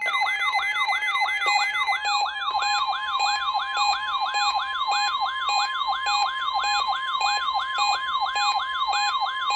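Weather radio receiver's alarm sounding a siren that sweeps down in pitch about three times a second, set off by the NOAA Weather Radio 1050 Hz warning alarm tone of the weekly test. That steady tone is heard under the siren from about a second and a half in.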